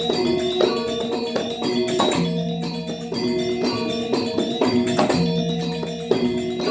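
Balinese gamelan Semar Pagulingan playing: bronze metallophones ring out a quick stream of struck melodic notes, over low notes that sound and die away every few seconds.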